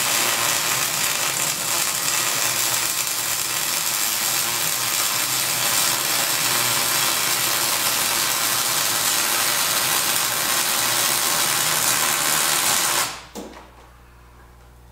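Millermatic MIG welder's arc crackling steadily as a bead is run on a steel plow blade, cutting off suddenly about 13 seconds in when the trigger is released.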